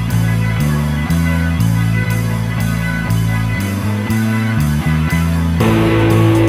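Background music with a steady beat and held bass notes, moving into a new section near the end.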